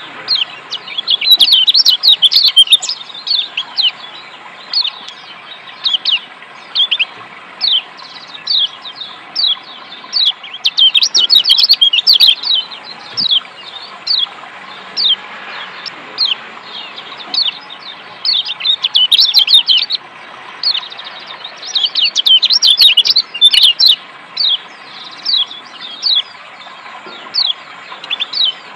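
Yellow white-eye (kecial kuning Lombok, a Zosterops) giving sharp 'ciak' chirps, each a quick downward-sweeping note, about one a second, broken several times by dense runs of rapid twittering. Beneath the calls is a faint, steady hiss of running water.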